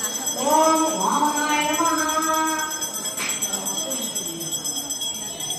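A bell ringing steadily with devotional singing, the sung notes held and gliding in the first few seconds, and a few sharp jingles.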